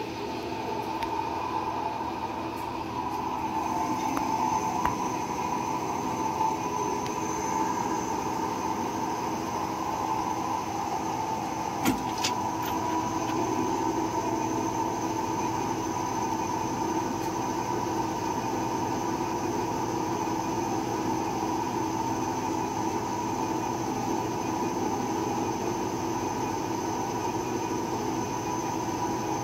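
CK6432 CNC lathe running, its chuck spinning a bar against the turret tool: a steady machine hum with a high whine, and one sharp click about twelve seconds in.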